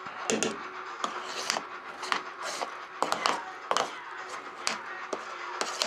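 A metal spoon scraping and clinking against a stainless steel bowl of mashed potatoes, in short irregular strokes.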